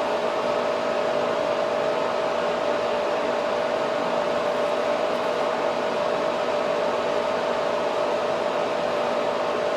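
Cooling system of a vertical 808 nm diode laser hair removal machine, running at idle: a steady whir with a steady hum tone through it.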